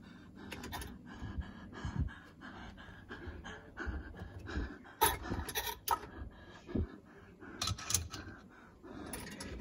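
Nested plastic and stainless steel bowls knocking and clinking as they are shifted about in a kitchen cabinet, in irregular bumps with a few sharper clinks in the second half.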